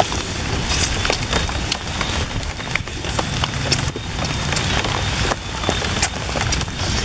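A person eating cooked eel by hand close to the microphone: chewing and lip-smacking, heard as scattered sharp clicks over a steady hiss of background noise.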